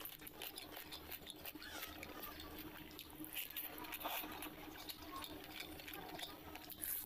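Wet chewing and lip smacking, with fingers squelching and mixing through watery fermented rice (panta bhat); many small, irregular clicks and smacks.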